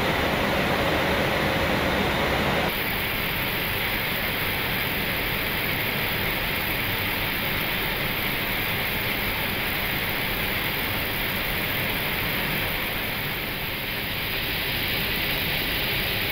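Steady rushing airflow and air-conditioning noise on an Airbus A320 flight deck in flight. About three seconds in it becomes slightly quieter and duller.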